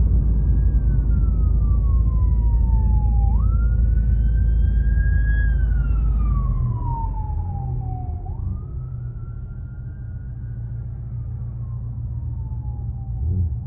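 Emergency vehicle siren wailing, its pitch gliding up and down in slow cycles of about five seconds. Under it is a low road rumble that lessens about halfway through.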